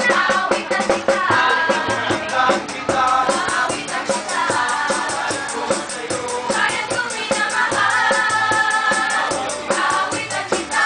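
A mixed group of restaurant cooks and waiters singing together in chorus, holding long notes in harmony, over a quick steady rhythmic accompaniment.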